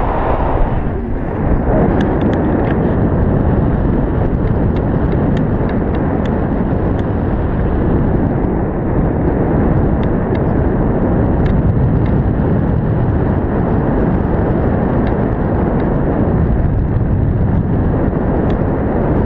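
Wind rushing over the microphone in paraglider flight: a steady, loud, low rush of airflow with no let-up, and a few faint light ticks now and then.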